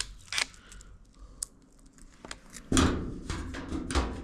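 Clicks and clatter of metal dryer parts being handled during reassembly: a sharp click at the start, a few light ticks, then a longer rattling scrape about three seconds in.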